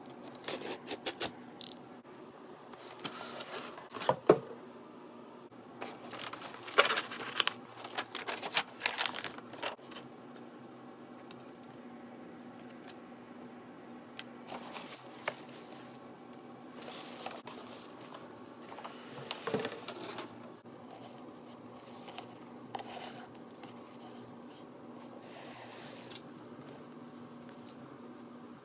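Utility knife slitting the packing tape on a cardboard shipping box in quick, scratchy strokes, then cardboard flaps being opened and packing paper crinkling as the contents are handled, with one thump midway through.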